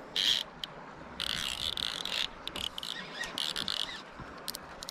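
Baitcasting reel clicking and ratcheting in several bursts while a hooked fish is fought and reeled in.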